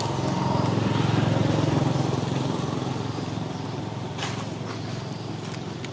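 A motor vehicle's engine running past, growing louder for the first second or two and then fading, with a few brief clicks near the end.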